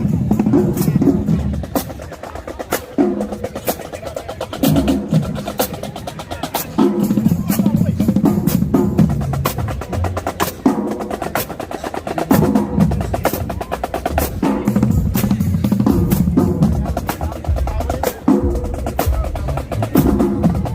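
Marching band drumline playing a cadence: rapid snare drum rolls and strokes over low drum figures that fall in repeated phrases.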